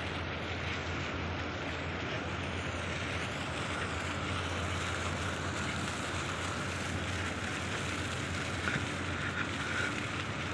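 Steady outdoor background noise: an even rushing hiss with a constant low hum underneath, with a few faint knocks near the end.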